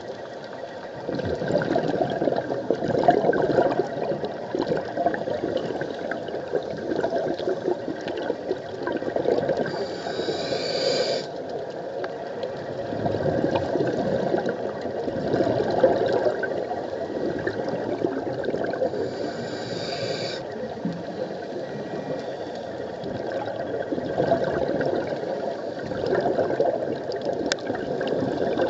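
Scuba regulator exhaust bubbles gurgling and rushing, heard underwater through a camera housing, swelling and fading in surges every few seconds as divers breathe out.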